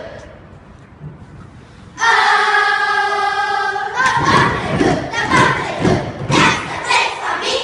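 A children's choral speaking group performing in unison: a short pause, then the voices hold one note together for about two seconds before breaking into loud, rhythmic group recitation.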